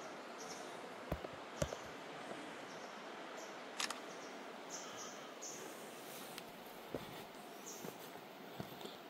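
Quiet outdoor ambience with a steady faint hiss and short, high bird chirps scattered throughout. About five sharp clicks or knocks come at irregular moments.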